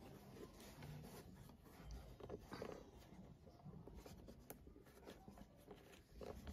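Faint rubbing and rustling of yarn being worked with a crochet hook, with a few small clicks.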